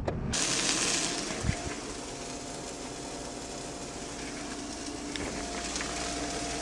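Quiet indoor room tone: a steady hiss with a faint steady hum, and one short knock about a second and a half in.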